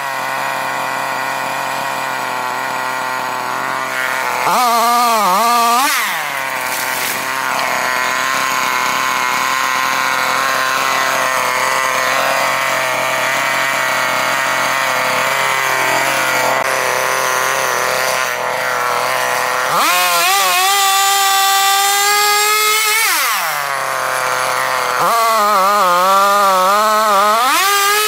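Two-stroke chainsaw idling steadily, revved up briefly about five seconds in. It runs at high speed again about twenty seconds in and once more near the end, its pitch wavering as the chain bites into wood.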